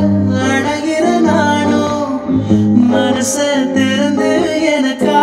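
A song with singing, playing loud and continuously as dance music.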